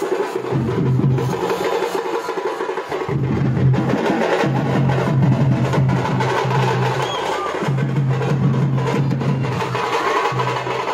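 Live drums beaten loudly in a fast, steady rhythm, with short breaks in the low beat a few times.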